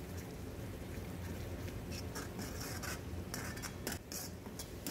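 Steel ladle stirring and scraping a thick masala around a karahi, giving a run of short, irregular scrapes over a steady low hum.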